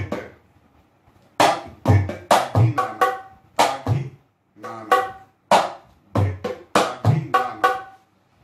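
Dholak played with bare hands, taking up about a second and a half in with a repeating phrase, the bol 'tak dhit tagi nana' in deepchandi taal. It mixes deep booming bass-head strokes with ringing treble-head strokes.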